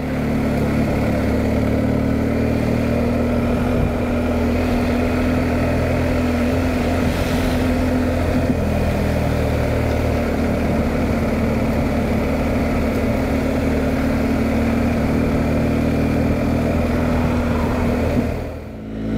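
BMW R1250GS Adventure boxer-twin engine running steadily at a light cruise in third gear, under a constant rush of wind and road noise.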